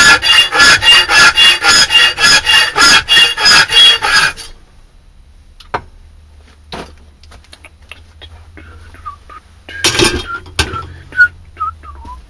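A hand file worked in rapid back-and-forth strokes, about three a second, stopping about four seconds in. After that come scattered light clicks and a brief clatter near ten seconds.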